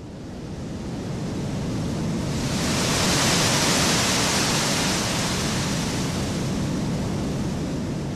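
Recorded Niagara Falls waterfall rush, equalized with the high frequencies boosted into a hissing white-noise wash over a low rumble. It starts abruptly, swells to a peak a few seconds in and slowly eases off: a sound-design layer for the moment a tsunami wave breaks.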